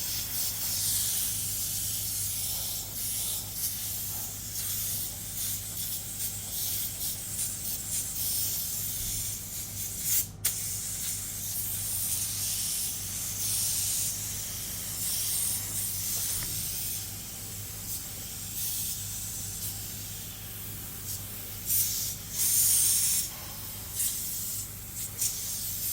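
Paint spray gun hissing as it sprays primer onto a car bumper, in passes that swell and ease, with a brief break about ten seconds in. A steady low hum runs underneath.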